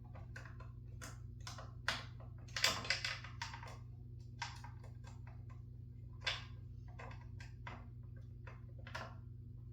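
Screwdriver working a blade screw on a Harbor Breeze ceiling fan: irregular small clicks and taps, with a quick cluster of louder ones about three seconds in, over a faint steady low hum.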